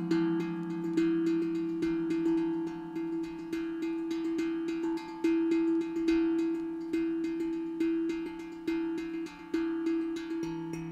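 Steel tongue drum played with the fingertips: a steady run of struck, bell-like notes, each ringing on and overlapping the next, over a low note that keeps sounding.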